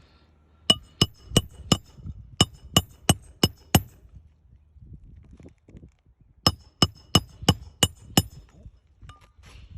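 Hammer striking metal in two quick runs of ringing, metallic blows, about three a second: nine, a pause of a few seconds, then six more.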